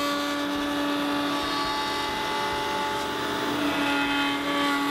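Table-mounted router running at speed with a quarter-inch spiral flush-trim bit, a steady whine with a held tone, as a piece of ABS plastic is fed past the bit to trim it flush to a template.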